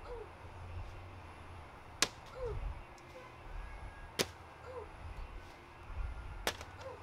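Bean bags landing one after another on a cornhole board: three sharp smacks about two seconds apart, each followed by a brief faint chirp.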